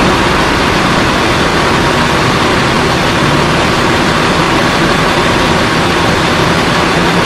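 Diesel coach engine idling steadily.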